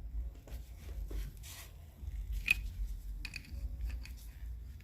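Wrench tightening a threaded air-compressor coupling: faint scattered metallic clicks and scrapes, with one sharper click about two and a half seconds in, over a low steady hum.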